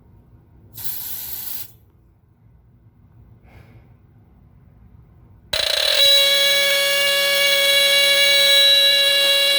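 A short hiss of aerosol smoke-detector test spray about a second in. About five and a half seconds in, the Westclox 83079 smoke alarm's DC-style squealer horn goes off in alarm, a loud, steady, buzzy squeal, set off by the test spray.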